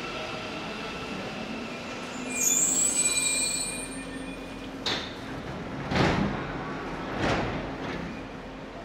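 Subway train standing at a platform: a steady hum, a high hiss starting about two and a half seconds in, then a knock and two swelling whooshes in the second half, typical of the train's doors and air system.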